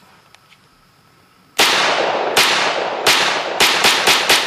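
A few faint clicks, then, about a second and a half in, a Sig Sauer 1911 Fastback Nightmare pistol fires seven shots, the first three spaced out and the rest in quicker succession, each with a ringing tail. The pistol feeds and cycles every round without a stoppage.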